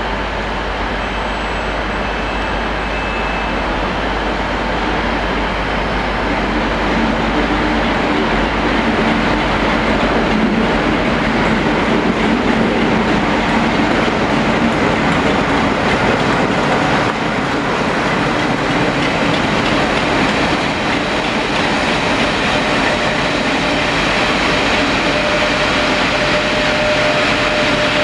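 Class 47 diesel locomotive running as it hauls a train of Pullman coaches past, its engine note heard in the middle, then the wheels of the coaches running on the rails. A steady high squeal comes in near the end.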